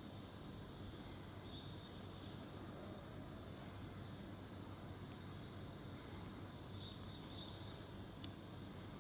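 Steady high-pitched hiss over a low hum, with a few faint soft ticks, one of them a little after eight seconds in.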